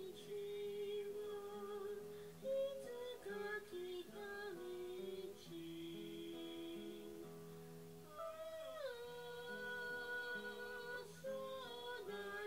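Music: a sung melody of long held notes over acoustic guitar.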